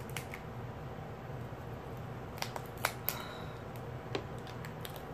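Cooked shrimp shell being peeled by hand: small sharp clicks and crackles, scattered, with the loudest few about halfway through, over a steady low hum.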